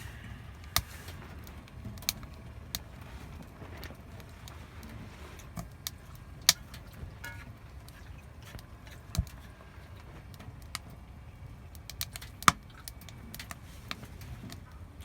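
Wood fire crackling, with sharp irregular pops from the burning wood over a low steady rush.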